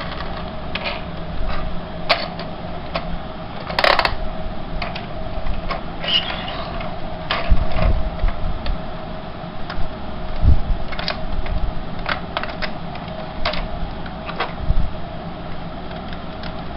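Small electric motor and plastic gears of a battery-powered toy motorcycle whirring steadily, with repeated clicks and knocks as the plastic toy is handled, a dense cluster of them about four seconds in.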